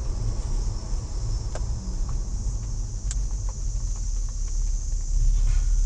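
Car driving slowly, heard from inside the cabin: a steady low rumble of engine and tyres on the road, with a steady high hiss over it and a few faint light knocks.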